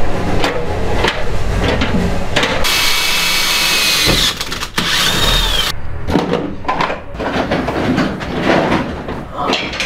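Cordless drill running a carbide hole cutter through a sheet-steel electrical box: a loud, high-pitched grinding screech for about three seconds, starting about two and a half seconds in and cutting off suddenly. Knocks and clatter of hand work come before and after it.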